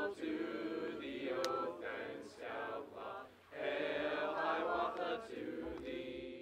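A mixed group of young men and women singing together in chorus: two sung phrases with a short break about halfway through.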